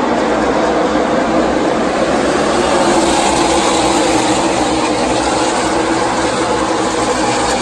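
A field of NASCAR Xfinity Series stock cars running around the track together, their V8 engines making a loud, steady noise.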